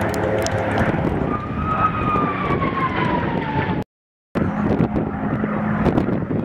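P-51 Mustang's Packard-built Merlin V12 engine running as the aircraft flies past overhead, with a whine that falls slowly in pitch. The sound drops out completely for a moment about four seconds in, then the engine noise returns.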